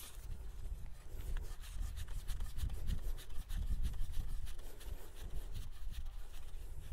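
Steel penetrometer extension rod being twisted by hand onto the threaded end of the rod in the ground: a fast, uneven run of scraping, rubbing clicks as the greased threads turn, with a low rumble underneath.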